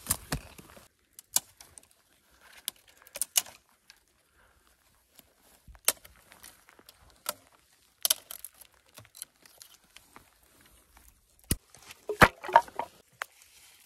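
Scattered sharp knocks and snaps of outdoor handwork: stones knocked together as they are set in a ring, and dry dead twigs snapped off a fallen branch, with a dense run of crackling snaps near the end.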